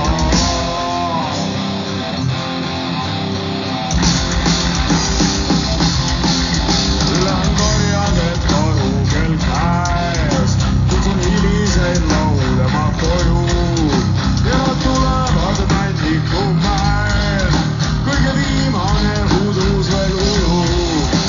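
Live heavy folk-metal band playing through a PA: distorted electric guitars and bass. The low end and drums drop back for the first few seconds, then the full band crashes back in about four seconds in, with a sung melody over it from about eight seconds on.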